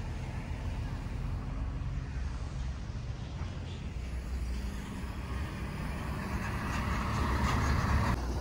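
Road traffic dominated by a heavy diesel truck, a MAZ garbage truck, approaching and getting steadily louder over the last few seconds.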